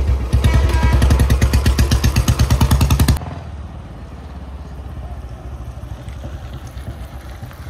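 Royal Enfield Bullet's single-cylinder engine running with its characteristic 'dug dug' thump, loud and fast at first, then dropping suddenly about three seconds in to a quieter, steady beat.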